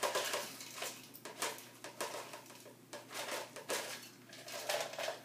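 Crispy fried onions poured and shaken from a measuring cup into a crock of green beans: a run of short, irregular dry rustles and light taps.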